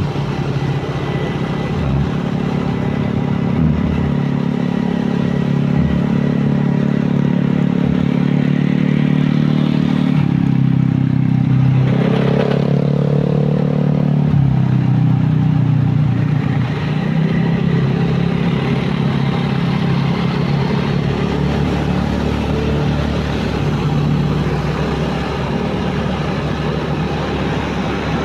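Motorcycle engine running steadily under the rider, with road noise, its pitch shifting slowly with speed. About twelve seconds in, a brief rising whine sounds over it.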